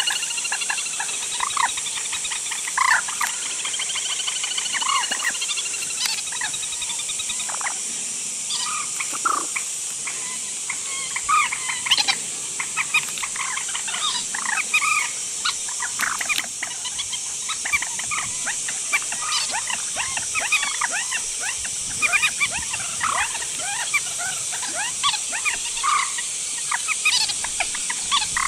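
Trích ré rails calling: many short, sharp notes at irregular intervals over a steady high hiss, the kind of call recording played through a speaker to lure these birds at night.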